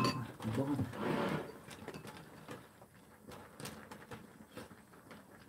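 Pot of clam sujebi simmering on a portable gas burner: scattered soft ticks and pops as the clams at the bottom of the pot pop in the boiling broth.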